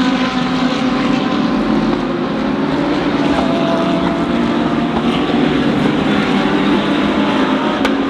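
GT3 race car engines running at speed on the circuit, a steady loud drone whose engine notes drift slowly in pitch, with a sharp click near the end.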